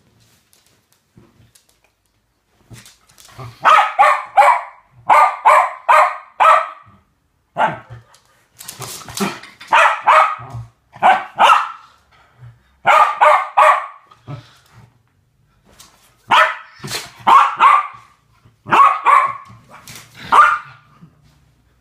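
West Highland Terrier play barking: quick runs of three or four sharp barks, repeated every second or so from a few seconds in until near the end.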